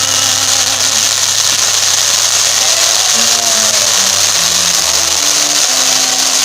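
Steady loud rushing hiss. Underneath it, faint music plays a melody of held single notes stepping up and down over a low drone that drops out about five seconds in.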